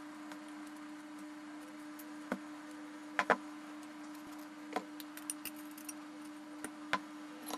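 Scattered metallic clicks and clinks of Vespa Cosa clutch parts, the steel clutch basket and clutch plates, knocking together as they are handled and fitted, over a steady low hum. The loudest is a sharp double click about three seconds in, with lighter irregular clicks after it.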